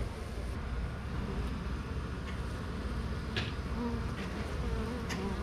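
A honey bee colony buzzing steadily inside a Flow Hive, worked up by being opened, with a few light clicks.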